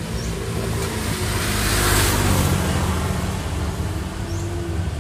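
Road traffic passing close by: a vehicle's engine and tyre noise swells to a peak about two seconds in and fades away, over a steady low hum.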